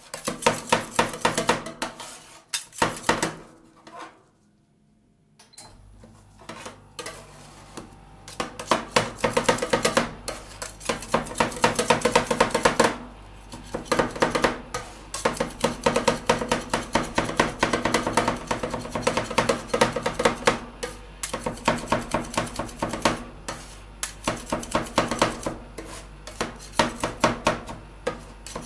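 Two metal spatulas rapidly chopping and scraping on a stainless-steel ice-cream cold plate, a fast run of ringing metal clacks, breaking up macaron pieces into the ice-cream base. The chopping stops for about a second and a half around four seconds in; after it resumes, a low steady hum sets in underneath.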